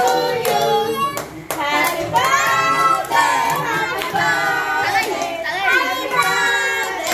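Several voices singing a birthday song together, with hands clapping along throughout.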